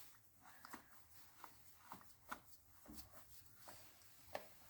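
Near silence, with faint, irregular small clicks and taps of a hand tool on metal as a nut is tightened on the engine's intake manifold.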